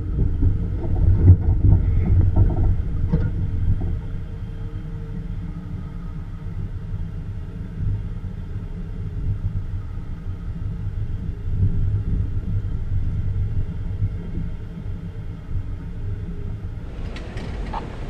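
An off-road vehicle's engine running steadily with a low rumble while driving a trail, loudest in the first few seconds. Near the end a windy hiss joins in.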